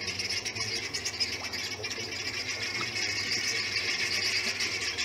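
A flock of helmeted guineafowl calling together in a continuous, rapid, harsh chatter, the alarm noise they raise at a predator close by.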